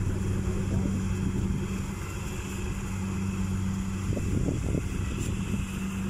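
Small farm tractor's engine idling with a steady, even low hum, with a few brief louder sounds about four seconds in.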